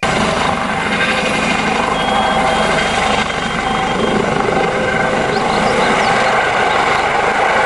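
Helicopter rotor and engine running steadily, a constant loud rushing noise with a fine low throbbing underneath.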